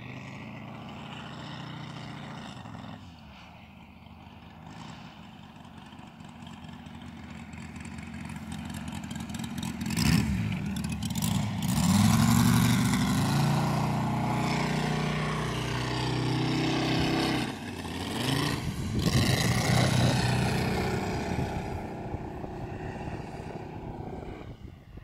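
Moki 250 cc radial engine of a large-scale model biplane running in flight. It grows louder as the plane makes low passes, loudest between about ten and twenty seconds in, with the pitch bending as it goes by.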